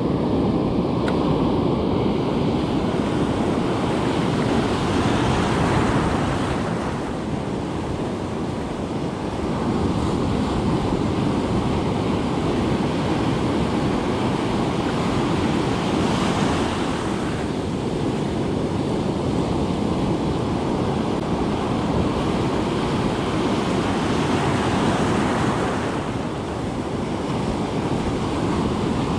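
Ocean surf breaking and washing up the beach, swelling and easing as each wave comes in, with wind rumbling on the microphone.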